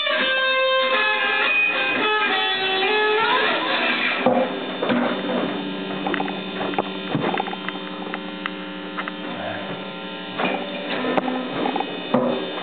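Electric guitar through a small amplifier playing sustained, bending notes for about four seconds, then the amp left buzzing with a steady mains hum, broken by several sharp clicks and pops.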